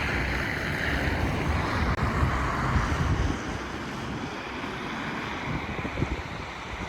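Strong gusty wind buffeting the microphone, with a low rumble and a rushing hiss that is louder for the first three seconds and then eases a little.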